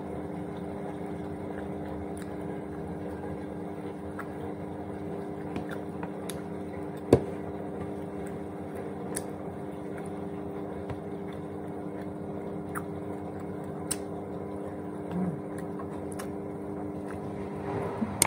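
Washing machine running with a steady hum that stops near the end. Faint clicks and smacks of eating crunchy fried fish, with one sharper click about seven seconds in.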